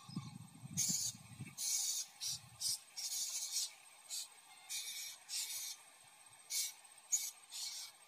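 Blue-crowned hanging parrots giving about ten short, high, hissy calls at irregular intervals, with a faint low rustle in the first couple of seconds.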